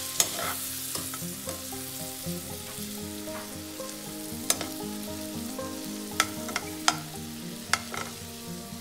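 Boiled broccoli florets sizzling in hot melted butter in a non-stick frying pan, stirred with a metal spoon that clicks sharply against the pan five times.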